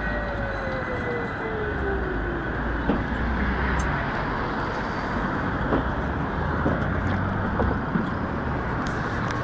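Electric tram braking into a stop, its motor whine falling steadily in pitch over the rumble of wheels on rail and dying out after about three and a half seconds. A steady low rumble with a few light knocks follows.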